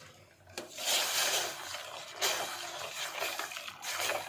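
Soaked rice with its water being tipped into a steel pot of boiling water: a sloshing, splashing rush of water that starts about half a second in and goes on, rising and falling.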